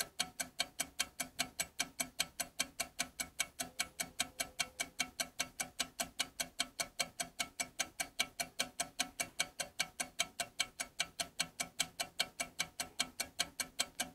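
Clockwork ticking evenly and quickly, about five ticks a second.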